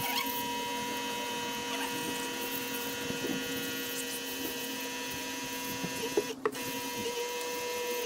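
Mobi V-17 battery-powered portable pressure washer running, its pump whining steadily while it sprays water to rinse the foam off the bike. The spray cuts out briefly about six seconds in, then resumes.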